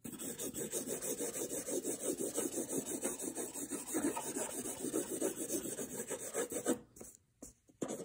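Felt-tip marker scribbling on paper, quick back-and-forth shading strokes at about four or five a second. The strokes stop shortly before the end and start again just after.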